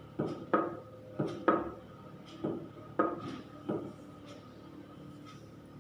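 Irregular series of sharp knocks with a brief ringing, about seven in the first four seconds, then a couple of faint ticks: the patient's foot jerking and knocking against the bed, a reflex to electric current sent through the therapist's hand.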